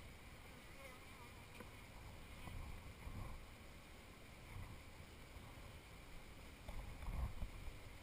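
Faint steady hum of honeybees at an open hive, with a couple of low rumbles, the loudest near the end.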